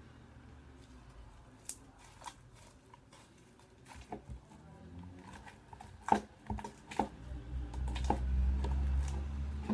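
Pots and slime being handled: scattered small clicks and taps as the slime is taken out of a pot, with a low rumble of handling from about seven and a half seconds to near the end.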